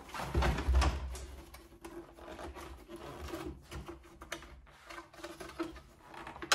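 Plastic housing and internal parts of a Melitta CI Touch bean-to-cup coffee machine being handled during disassembly: irregular knocks and rattles of hard plastic, loudest in the first second, then lighter clicks and scraping.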